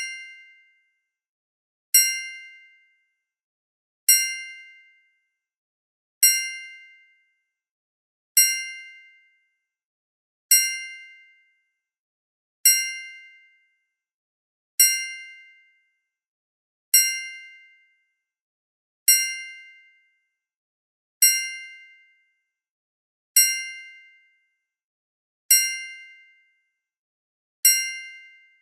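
A bright metallic ding sound effect, struck sharply and ringing out for about a second, repeated at an even pace of about one every two seconds.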